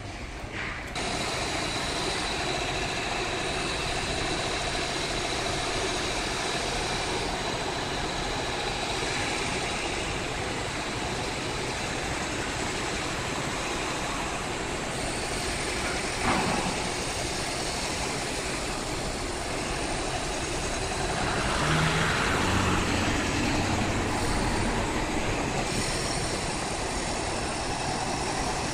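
Steady roadside traffic noise with lorry engines running, starting abruptly about a second in. A single knock comes about sixteen seconds in, and the noise swells for a few seconds a little past the middle.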